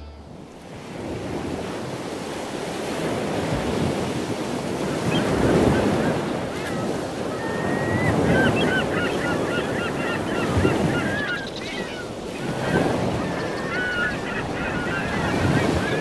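Ocean surf breaking on a sandy beach, a steady wash that swells and fades every few seconds. From about five seconds in, birds chirp and call over it.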